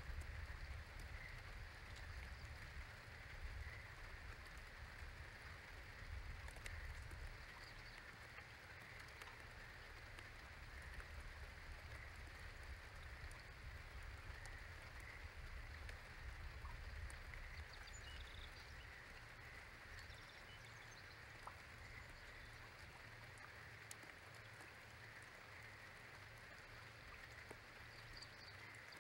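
Faint outdoor ambience after a rainstorm: scattered small water drips over a steady low hiss, with a low wind rumble that eases off partway through.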